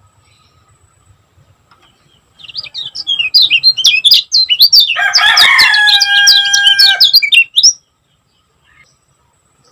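Kecial kuning white-eye singing a fast, dense run of high chirps for about five seconds, starting a couple of seconds in. About halfway through, a rooster crows for about two seconds under the song.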